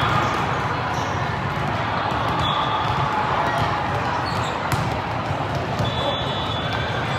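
Din of a busy indoor volleyball hall: volleyballs being hit and bouncing on the courts over a steady background of many indistinct voices, with a few sharp impacts in the middle.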